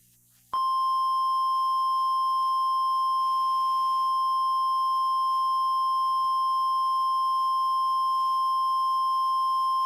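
NOAA Weather Radio warning alarm tone: a single steady high-pitched tone of about 1050 Hz that begins about half a second in and holds without change. It signals that a warning is about to be read, here a severe thunderstorm warning.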